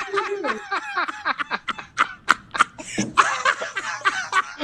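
Several people laughing at once, with overlapping chuckles and snickers in short bursts.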